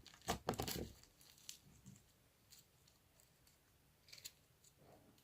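Slime being stretched and squeezed by hand, crackling and clicking in a quick cluster in the first second, then only faint scattered clicks.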